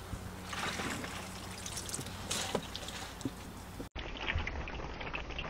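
Water trickling and dripping off freshly washed salad greens back into a plastic bucket of water, with a brief dropout about four seconds in.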